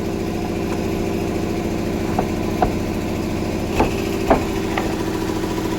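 An engine running steadily at idle, with a few short sharp knocks over its sound from about two seconds in.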